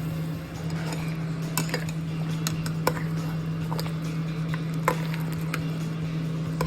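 Kitchen utensils clinking against a cooking pot or dishes, about half a dozen sharp clinks at irregular intervals, over a steady low hum.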